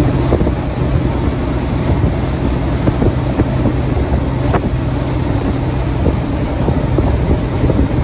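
Kenworth W900 semi-truck at highway speed, heard from inside the cab: a steady diesel engine drone mixed with loud road and wind noise.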